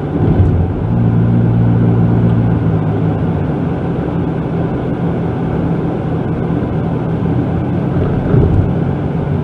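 Steady engine hum and road noise inside the cabin of a 1999 Toyota Camry while driving.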